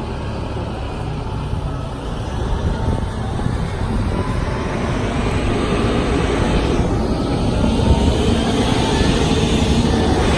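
Large boat-handling forklift's engine running steadily while the forklift holds a boat up on its forks, growing a little louder toward the end.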